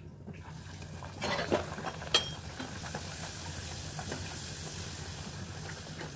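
Kachoris frying in hot oil with a steady sizzle that sets in just after the start. Some utensil clatter comes between one and two seconds in, with one sharp click just after two seconds.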